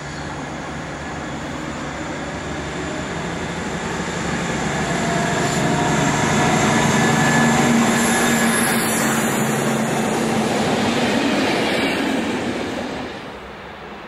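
A large diesel locomotive hauling double-deck coaches passes close by. Its engine drone and the rolling of its wheels on the rails grow louder as it approaches and hold loud while it goes by, with thin high tones over the top. The sound drops off sharply near the end.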